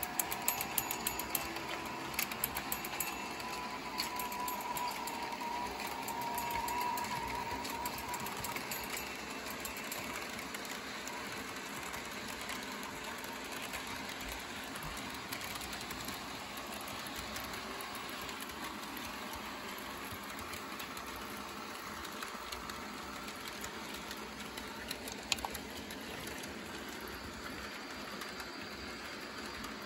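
HO-scale electric model trains running on the track: a steady whirr of small motors and rolling wheels, with a quick run of clicks over rail joints in the first few seconds and another click near the end.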